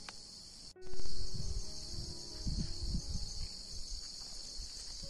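Steady high-pitched insect chorus, with low rumbling bumps of handling or wind on the microphone for a couple of seconds from about a second in.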